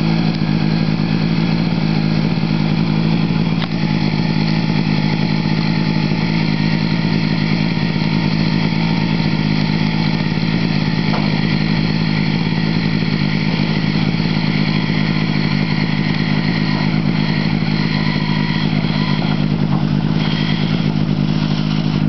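Engine of a wild rice harvesting boat running steadily at constant speed, a loud unbroken drone with no change in pitch.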